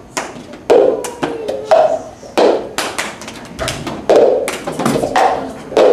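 Plastic cups being tapped, slapped and set down on a hard floor, with hand claps among them, in a repeating rhythm of sharp taps and heavier thuds, the loud strokes about once a second.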